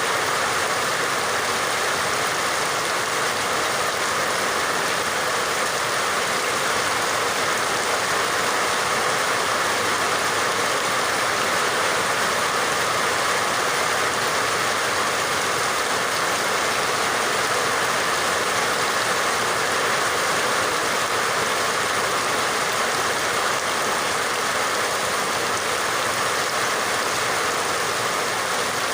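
Rain falling steadily: an even, unbroken hiss with no pauses or changes.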